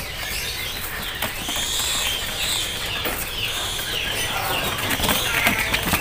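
Many caged songbirds chirping and calling over one another, with some wing fluttering.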